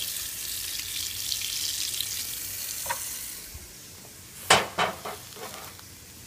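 Cold tap water running over hot AEB-L stainless knife blades fresh from tempering, a steady hiss that dies away about three seconds in. A few sharp knocks follow about a second later.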